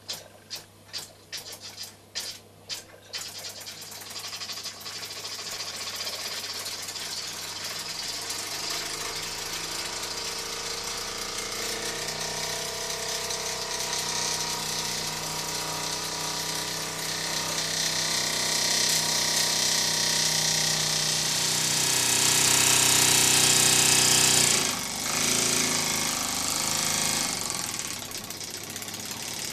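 Small oscillating steam engine in a walking-stick handle, run on steam from a small boiler. It starts with slow, separate clicks about three a second, then speeds up into a fast, continuous chatter with a rush of hissing steam that grows louder. Near the end it dips briefly as the supply valve is adjusted, then runs on a little quieter.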